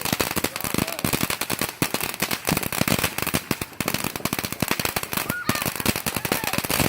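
Firecrackers going off in a rapid, unbroken string of sharp pops, many per second.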